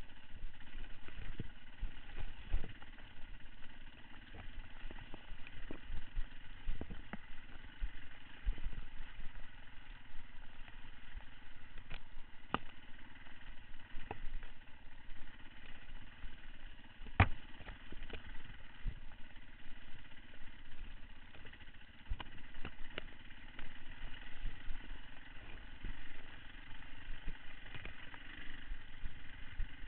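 Beta 525 RS four-stroke single-cylinder enduro motorcycle engine running steadily at low revs, with repeated sharp knocks and rattles from the bike over rough trail ground, the loudest about 17 seconds in.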